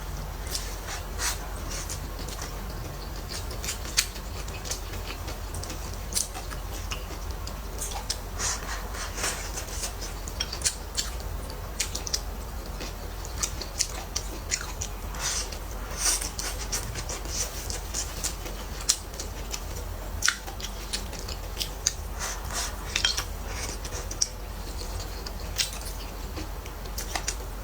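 Close-miked eating: chewing and mouth sounds with many scattered, sharp little clicks and crackles as stir-fried smoked tofu with pork and chili peppers is eaten.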